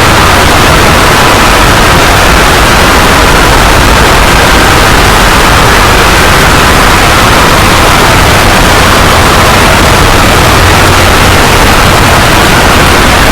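Loud, steady, heavily distorted noise like harsh static, filling the whole range evenly, with no pauses and no clear separate sounds.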